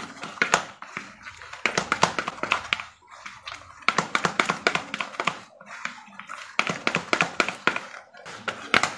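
Blue plastic paddle scraping and pressing a crumbly steamed carp bait mix against the sides of a green plastic bowl, mashing it smooth: runs of rapid scraping and tapping strokes with short breaks.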